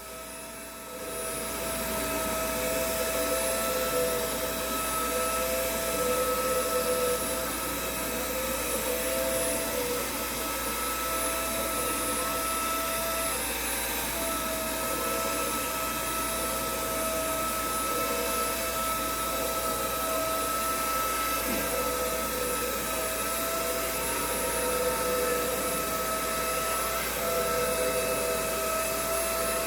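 Xiaomi window-cleaning robot running, its suction fan making a steady whirring hiss with a high-pitched whine; it comes on about a second in.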